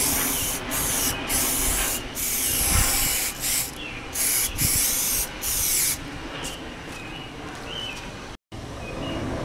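Aerosol can of primer spraying in a string of short hissing bursts for about six seconds, then stopping.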